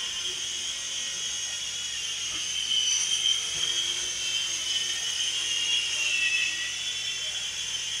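Syma S52H toy RC helicopter in flight, its small electric motors and rotors making a high whine. The whine swells and rises a little in pitch around three seconds in and again around six seconds in.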